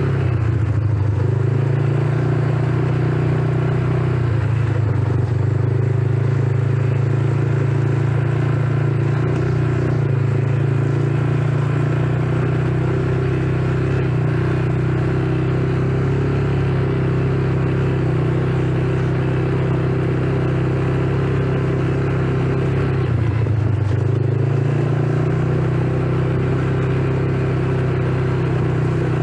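Small quad bike (ATV) engine running steadily under the rider, with tyres rolling over gravel. The engine note dips briefly about a second in and again a few seconds before the end, then picks back up.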